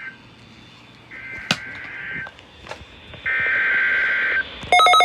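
Emergency Alert System SAME header: one-second bursts of buzzy data tones, two of them a second or so apart. About four and a half seconds in, a loud, rapidly pulsing alert tone starts. A sharp click comes about a second and a half in.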